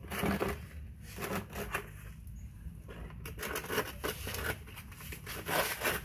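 Irregular rustling, crinkling and scraping handling noises in short bursts, as objects are moved and handled, with a few small knocks.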